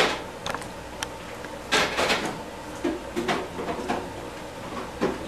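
Kitchen handling sounds: one sharp click, then a scatter of short knocks and clicks, as of containers being picked up and set down on a counter.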